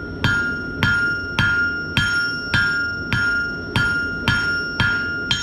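Blacksmith's hammer striking hot steel on the anvil while drawing out a nail point: steady, even blows about two a second, each with a bright anvil ring that hangs on between strikes.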